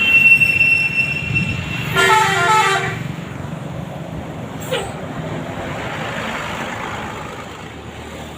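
Bus "basuri" telolet multi-tone horn sounding a short stepping tune about two seconds in, after a held high tone at the start. The bus then runs past and its engine noise fades away.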